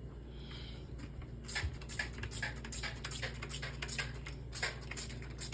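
Bleach-soaked inside of a fridge being scrubbed: a quick, irregular run of short rubbing strokes starting about a second and a half in, over a low steady hum.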